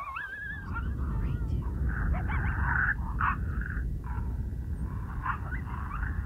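Repeated wavering yips and howls of coyote calls, rising and falling in pitch, with wind rumbling on the microphone that sets in at the start and is the loudest sound.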